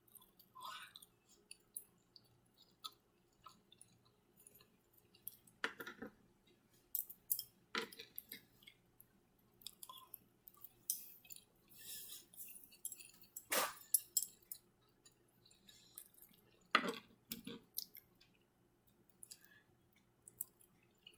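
Close-miked chewing and wet mouth sounds while eating shrimp lo mein and orange chicken, with scattered small clicks and four louder sharp sounds spread through.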